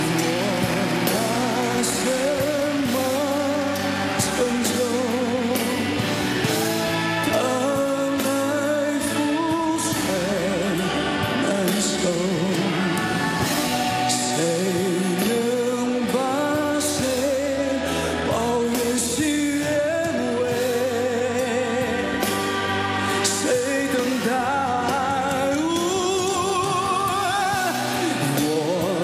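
A male vocalist sings a Mandarin pop ballad live over instrumental backing. He holds long notes with a wavering vibrato.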